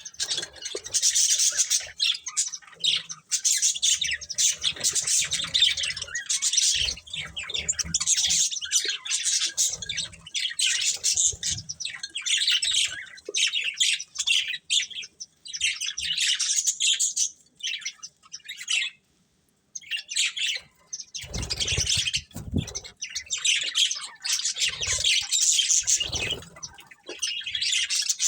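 Budgerigars chirping almost continuously in rapid high twitters, with a short pause about two-thirds through followed by a few soft low thumps as the chirping resumes.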